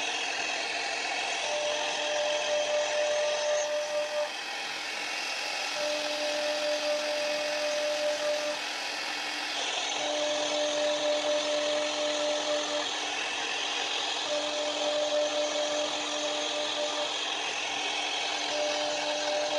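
CNC router spindle running with a thin end-mill bit cutting grooves into a wooden sheet, a steady high cutting noise. A steady hum starts and stops every few seconds.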